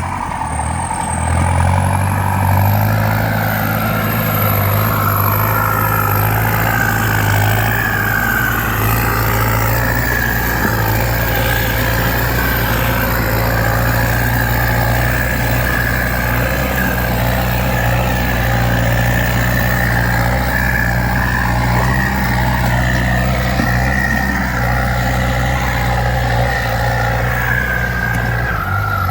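Kubota M9540 tractor's four-cylinder turbo-diesel engine running steadily while pulling a plough, its low drone even throughout.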